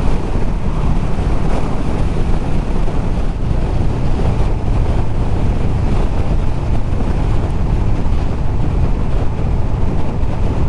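Honda VFR800F's V4 engine running at a steady riding speed, under rushing wind noise on the microphone.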